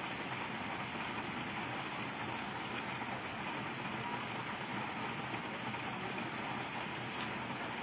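Steady rain: an even, unbroken hiss of falling drops.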